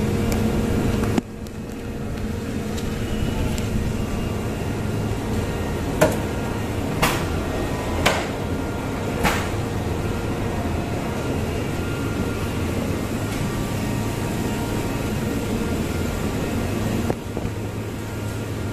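Steady machine-like hum and noise, like a fan or motor running, with four sharp clicks or knocks about a second apart in the middle.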